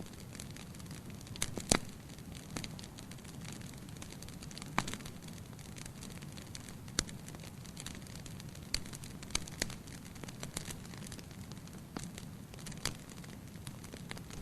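Campfire burning and crackling: a steady low hiss with irregular sharp pops and snaps of burning wood, a few louder cracks here and there.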